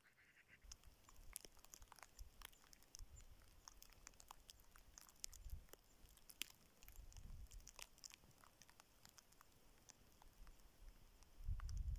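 Near silence broken by faint scattered clicks and crackles, with a low rumble that comes and goes.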